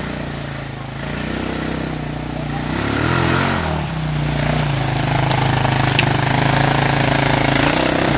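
Off-road buggy's engine running close by, revving up and dropping back about three seconds in, then running steadily and louder.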